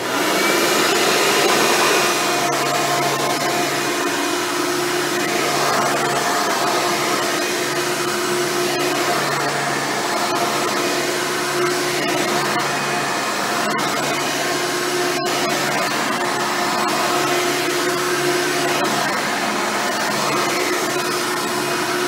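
Hoover Preferred upright vacuum with a single-row brush roll running steadily while pushed over carpet. Its rebuilt motor now has the missing washer fitted between the fan and the front bearing, so the fan no longer rubs the housing and there is no grinding.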